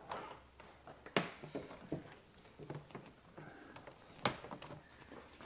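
VW Jetta trunk lid being unlatched and lifted open by hand, with two sharp clicks about three seconds apart and a few light knocks.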